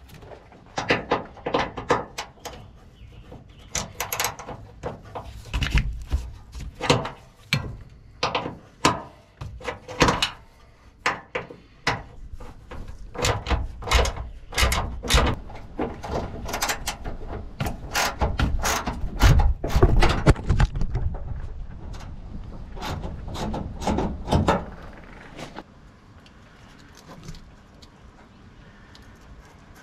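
Irregular clicks and knocks of a hand screwdriver working a screw against the truck's sheet metal to fasten a ground wire, with low thumps mixed in. The clicking stops about 25 seconds in and it goes quiet.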